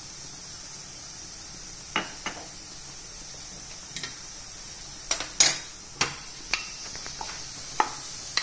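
Sharp clicks and knocks of small bowls and a wooden spoon against a stainless steel saucepan as ingredients are tipped and scraped into milk, about a dozen separate taps, thickest around five to six seconds in, over a faint steady hiss.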